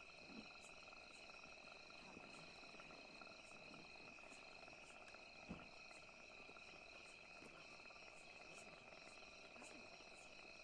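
Faint, steady insect chirping with a regular high tick about twice a second, and one soft thud about five and a half seconds in.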